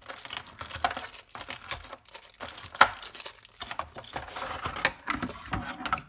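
Small clear plastic bags crinkling as they are handled, with scattered light clicks and one sharper click a little under halfway through.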